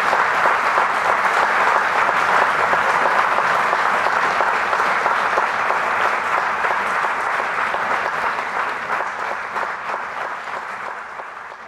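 Church congregation applauding steadily, the clapping dying away toward the end.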